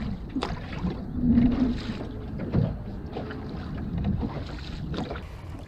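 Wind on the microphone and water against a small fishing boat, with a few sharp knocks.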